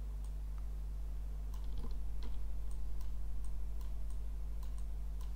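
Scattered, irregular computer mouse and keyboard clicks over a steady low hum.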